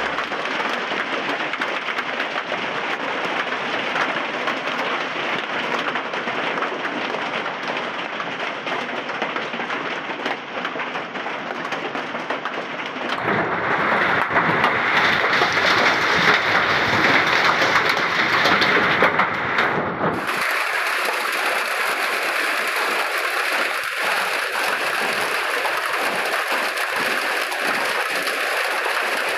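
Hail and rain pelting down in a dense, steady patter. About 13 seconds in it turns abruptly louder and sharper for several seconds, then drops back to a lighter, thinner patter.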